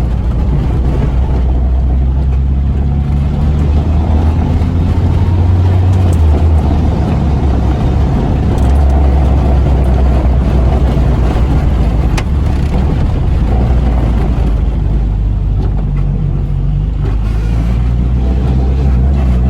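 Renault Twingo's engine running under load while the car is driven, its pitch dropping and climbing again a few times as the driver lifts off and pulls away, with steady road noise underneath.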